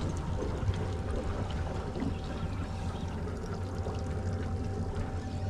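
Outboard motor of a small fishing boat running steadily at low speed, a constant hum, over the wash of water against the hull.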